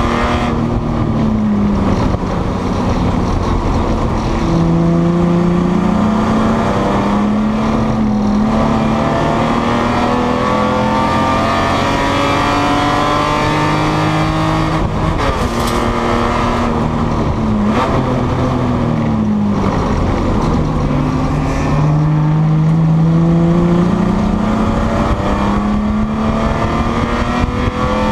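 Spec E30 BMW race car's engine at racing speed, heard from inside the stripped cockpit. The engine note climbs steadily under throttle over several seconds, then falls back at a gear change or lift, several times over.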